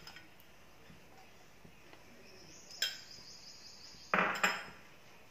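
A spoon and a nonstick kadai as a teaspoon of ghee goes into the pan: a sharp clink of metal about three seconds in, a faint high hiss, then a brief clatter just after four seconds.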